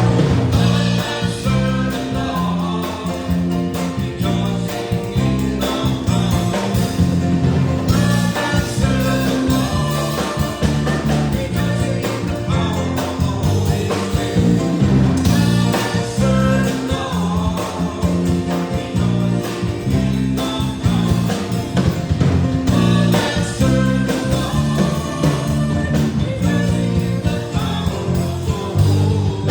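Congregation singing a hymn with instrumental accompaniment, including guitar and drums, with a steady beat.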